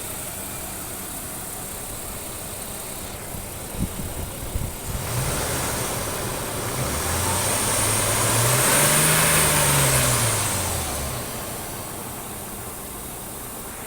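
Nissan Patrol Y61's 4.8-litre petrol straight-six idling, revved once about halfway through and falling back to idle. It is running smoothly after a damaged camshaft was replaced, with no tick-tick from the valvetrain.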